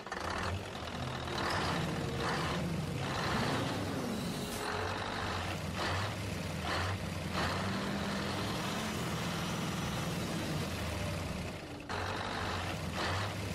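Heavy diesel truck or excavator engine running steadily, with short hisses at irregular intervals like air brakes releasing.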